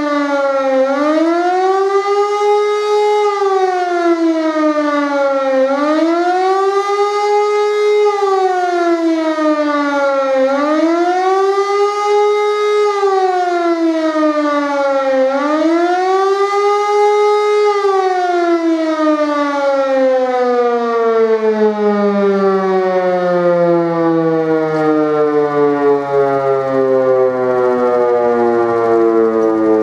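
Siemens E57 electromechanical civil-defence siren sounding the rising-and-falling wail of the German public warning signal, its pitch swelling and sagging about every five seconds. A little past halfway it is switched off and winds down in one long falling tone.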